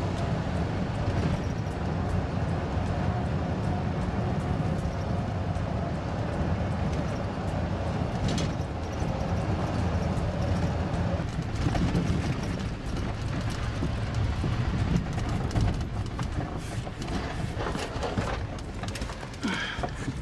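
Vehicle running along a road, heard from inside the cabin: a steady low engine and road rumble, with frequent short knocks and rattles, most of them in the second half.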